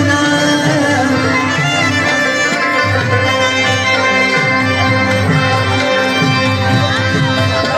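Live Pashto folk music (tappay) played through loudspeakers: a held, reedy melody over a steady drum beat.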